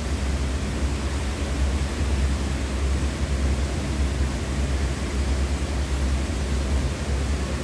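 Steady, unchanging noise with a deep low rumble underneath and an even hiss above it.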